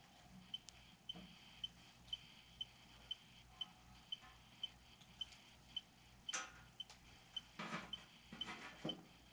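Near silence with a faint, regular high-pitched tick about twice a second, and a few brief soft rustles in the last few seconds.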